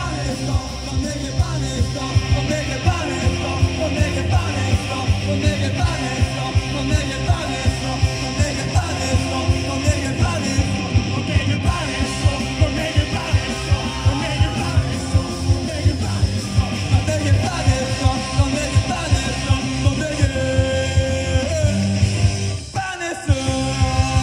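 Live punk rock band playing at full volume: distorted electric guitars, bass and a fast, steady drum beat under a shouted, sung vocal. The band drops out for a moment near the end, then comes back in.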